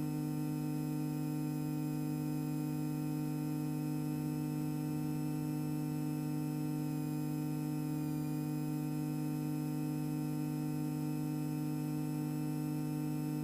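Steady hum on the aircraft's headset intercom audio while the Extra EA-200's engine idles on the ground to warm its oil, made of several even tones with a slight dip in pitch about eight seconds in.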